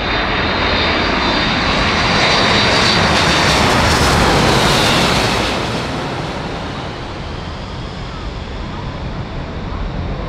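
Boeing C-17A Globemaster III's four Pratt & Whitney F117 turbofans passing low overhead: a dense jet roar that swells to its loudest about four to five seconds in, its high whine dropping in pitch as it goes over, then fading as the aircraft flies away.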